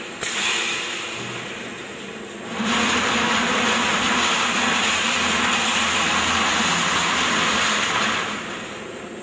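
High-speed wire mesh welding machine (3–6.5 mm wire) running: a steady mechanical noise with hiss, a sharp clack just after the start, growing louder about two and a half seconds in and dropping off near the end.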